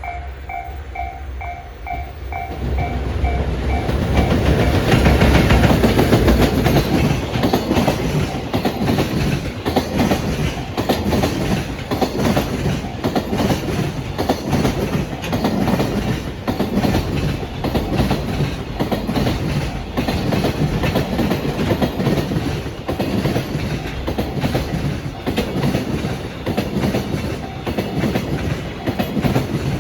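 A Japanese level-crossing warning bell dings about twice a second. A few seconds in, a JR Freight EF210-100 series electric locomotive and a long train of Koki container wagons reach the crossing and pass at speed, wheels clattering over the rail joints in a steady run of knocks that drowns out the bell.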